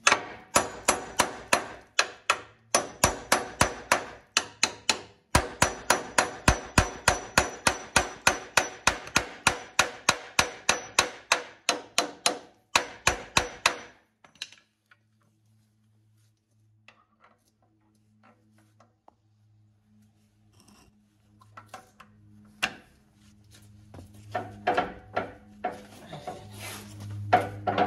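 Steel hammer beating on a rusted snowplow bolt, rapid ringing metal blows about three a second for some fourteen seconds, with two short pauses. After that come scattered light clicks over a faint low hum, then a few metal clinks near the end as a breaker bar goes onto the bolt.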